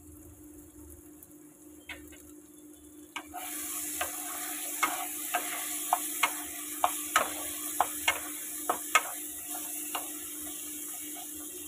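Tomato-and-prawn masala sizzling in oil in a non-stick kadai, with a spatula stirring it and knocking against the pan about a dozen times. The sizzle and stirring start about three seconds in.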